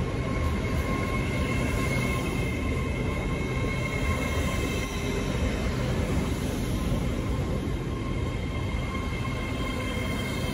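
LNER Azuma passenger train rolling slowly past at close range: a steady rumble of wheels on the rails with a thin, steady whine above it.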